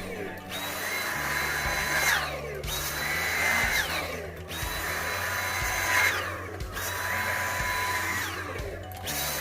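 Dyson vacuum cleaner running with a high whine over an airy rush. About every two seconds the whine glides down in pitch, dips briefly, then comes back up, as the suction changes while the nozzle is worked over a pet's coat.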